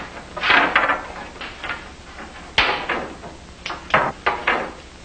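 Wooden boards knocking and clattering against a workbench as long boat battens are handled: a cluster of knocks early, one sharp knock near the middle, and several more near the end.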